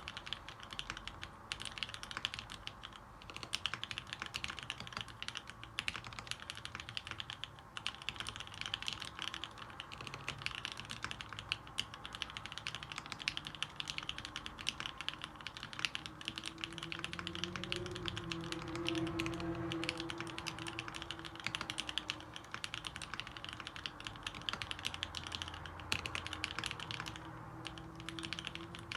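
Continuous, rapid typing on a custom mechanical keyboard with lubed vintage Cherry MX Black linear switches on 65 g springs, mounted on a PVC plate with lubed stabilizers.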